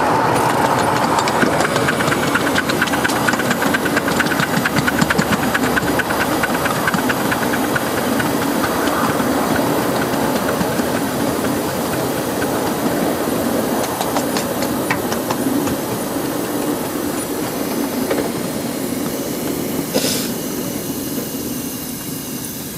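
Miniature steam locomotive running along the track, heard from the driver's seat: a steady hiss of steam with a fast mechanical beat, slowly getting quieter. About twenty seconds in there is one short, sharp hiss.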